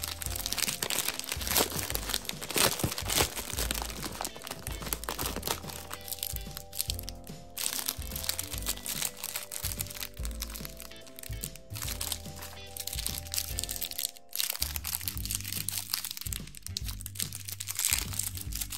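Plastic wrappers of Snickers Fun Size bars crinkling and crackling as they are handled and torn open, thickest in the first few seconds and again from about three-quarters through. Light music plays under it.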